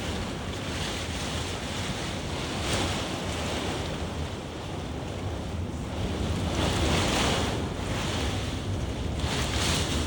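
Thunderstorm downpour and gusting wind, a steady rushing that surges three times as gusts drive the rain harder.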